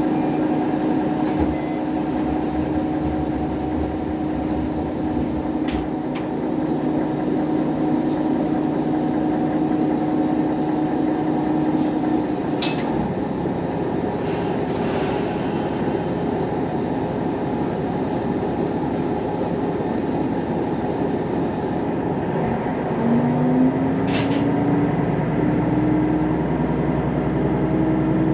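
Sanriku Railway diesel railcar under way, heard from inside the car: a steady running rumble with the engine note. The engine note drops out about twelve seconds in, rises again near the end as power comes back on, and a few sharp clicks sound along the way.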